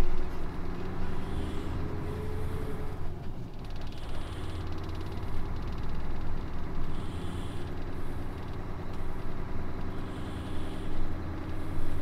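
Heavy truck's engine running steadily with a low hum.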